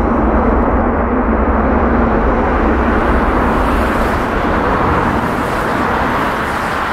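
Jet airliner engines running, heard across the airfield as a steady, even noise with a low rumble.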